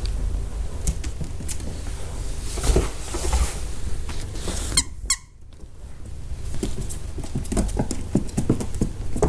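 Squeaker in a plush giraffe hand-puppet toy squeaking once, a short wavering squeak, just before five seconds in. Fabric rustle and low rumble from handling the puppet, with light taps near the end.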